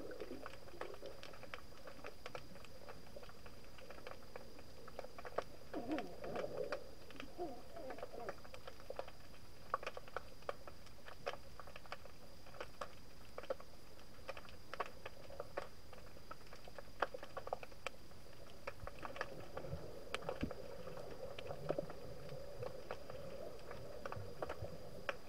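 Underwater ambience picked up by a submerged camera: sparse, irregular sharp clicks and crackles over a faint steady hiss, with a thin steady high tone throughout. A few brief low gurgles of moving water come about six seconds in and again near the end.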